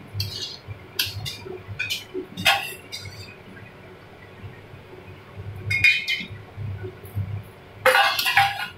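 Metal spatula scraping and knocking against a steel kadai while stirring rice and lentils frying in oil. The strokes come irregularly with pauses, and the loudest cluster comes near the end.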